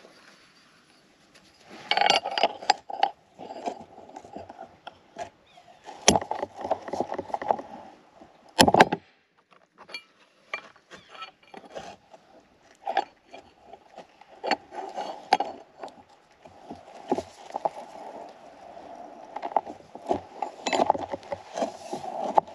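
Hand-operated rebar bender bending number 3 rebar into a small stirrup: irregular metal clanks, clinks and scraping of steel bar against the bender, with a sharp clank about nine seconds in.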